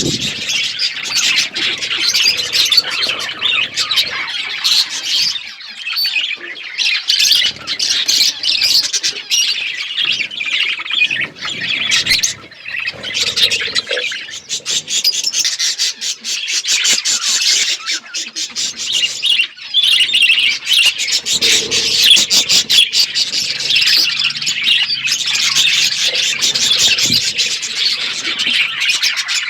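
A flock of budgerigars chirping and chattering without a break, a dense mix of fast warbles, squawks and short clicks.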